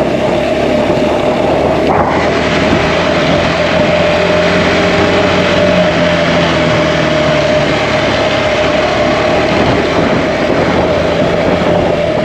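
Single-cylinder motorcycle engine running steadily while riding, with wind and tyre noise rushing over it.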